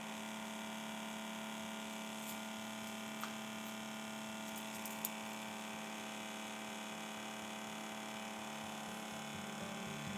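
Small 6-volt hobby DC motor of a mini fume extractor spinning its propeller, running with a steady hum, with two faint ticks a few seconds in.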